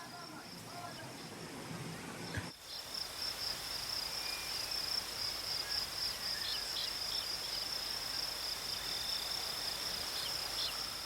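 Insect chorus, a steady high pulsing trill like crickets, briefly breaking off about two and a half seconds in.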